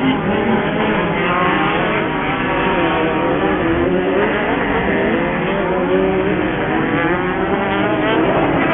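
Engines of several Pro Buggy off-road racing buggies running hard together, their pitches rising and falling as they accelerate and back off.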